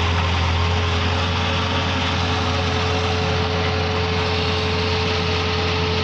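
JCB 3DX backhoe loader's diesel engine running steadily, with a constant low drone and a thin steady whine above it.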